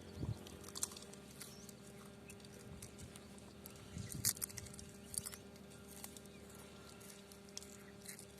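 Faint chewing and crunching of snacks: irregular crisp crunches and clicks, with a couple of louder bites.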